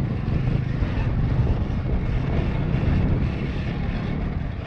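Ride-along sound of a KTM SX-E 5 battery-electric kids' dirt bike moving along a dirt trail: a steady rumble of wind on the microphone mixed with tyre and chassis noise over the ground, with no engine note.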